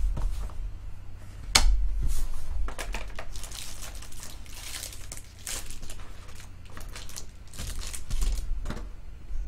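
Plastic wrapping crinkling and tearing as a trading-card hobby box is unwrapped and its cardboard lid opened, with one sharp snap about a second and a half in.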